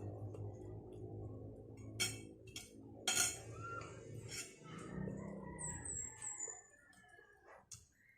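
Spoon and fork clinking against a plate and bowl while eating, a few sharp clinks, the loudest about three seconds in, over a low steady hum. A quick run of short high chirps sounds about six seconds in.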